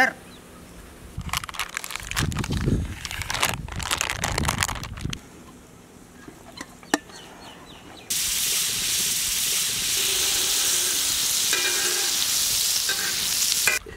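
A knife cutting and scraping through a block of butter, then, about eight seconds in, butter sizzling steadily on a hot metal griddle plate.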